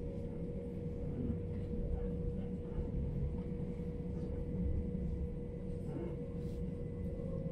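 Inside an electric commuter train carriage running at speed: a steady low rumble of wheels on the track with a constant hum over it.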